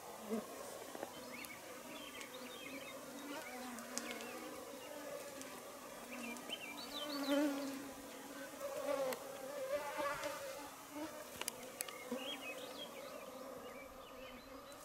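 Flying insects buzzing close by in a steady, wavering drone, rising and falling as they move about, with a few faint high chirps mixed in.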